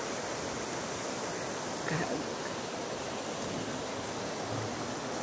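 Shallow stream running over rocks and stones, a steady even rush of water.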